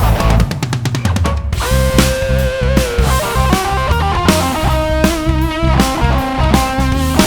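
Rock band playing at a sound check: a fast drum-kit fill in the first second and a half, then lead electric guitar holding bent, wavering notes over bass and a steady drum beat.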